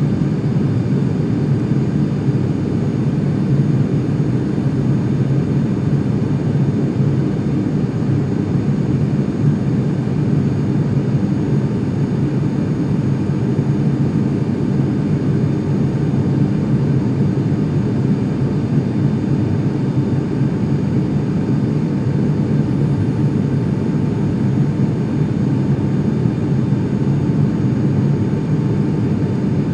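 Turboprop airliner's engine and propeller drone, heard from inside the passenger cabin, loud and steady in flight shortly after takeoff. A faint higher steady tone joins it about two-thirds of the way through.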